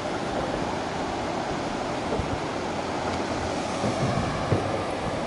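Steady rushing of water pouring over a river weir, with a couple of footsteps on a gravel path near the end.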